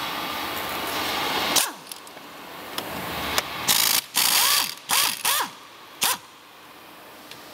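Cordless drill-driver with a socket spinning the electric bike's rear axle nut off, in about five short bursts around the middle, each winding down with a falling whine.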